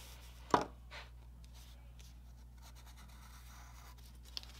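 Pencil drawing lines on paper, with faint scratching strokes. A single short, sharp knock about half a second in is the loudest sound, and a small click comes near the end.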